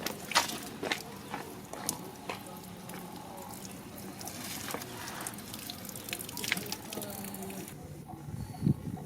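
Water dripping, with irregular sharp drips and small clicks over a faint steady hum. Near the end a louder low, pulsing voice-like sound starts.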